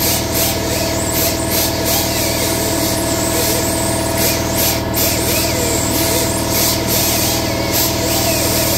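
Ingersoll Rand SS3 air compressor running steadily, with short hisses of compressed air from an air tool on top, the strongest about five seconds in.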